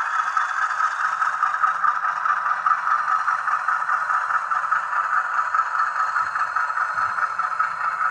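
HO scale model freight train rolling along the track: a steady scraping rattle of small metal wheels on the rails, with the model diesel locomotive's motor and gears running.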